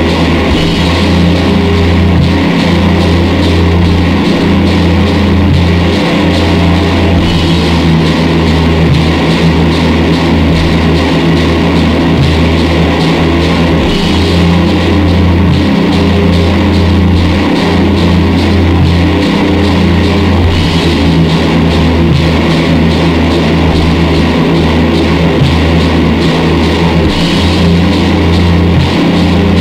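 Loud, dense doom noise music: a thick layer of noise across the whole range over a low, droning bass that shifts every second or two.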